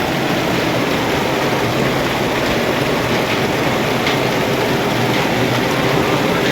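Heavy stormy rain mixed with hail, falling very hard: a loud, steady roar with a few sharp ticks of hailstones striking.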